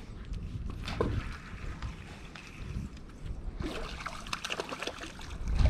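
Water splashing and sloshing at a small fishing boat, over a steady low rumble, with a busier patch of splashing a little before the end.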